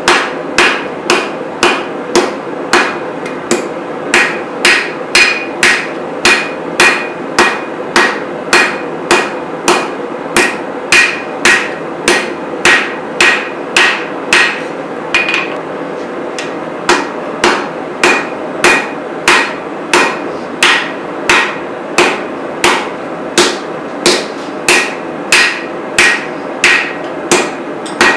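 Hand hammer striking steel on an anvil in a steady rhythm, about two blows a second, each with a short metallic ring, with a brief pause about halfway through.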